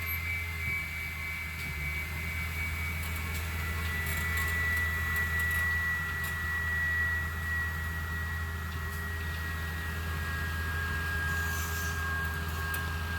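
Tracked tree-trimming excavator with a circular saw attachment running steadily: a deep diesel engine hum under a high whine from the saw drive that slowly falls in pitch.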